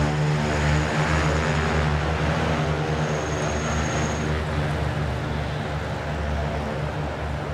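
Two electric motors on an eLazair ultralight turning wooden propellers, giving a steady propeller hum with a faint high whine. The tones fade about halfway through as the motors wind down and the propellers stop.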